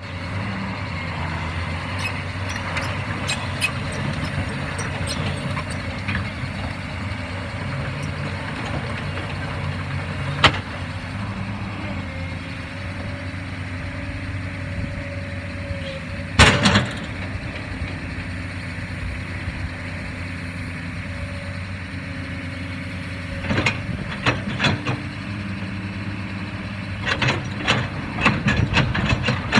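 Fiat Kobelco E215 excavator's diesel engine running steadily, with a higher whine that comes and goes and sharp knocks: one loud knock past the middle and clusters of them near the end.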